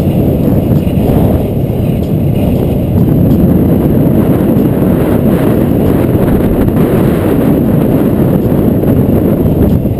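Steady, loud wind noise buffeting a bike-mounted action camera's microphone during a fast bicycle descent.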